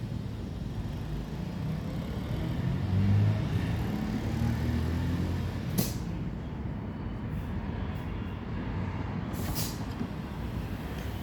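A vehicle engine running with a low rumble that swells between about two and six seconds in, and two short hisses of air, about six and nine and a half seconds in.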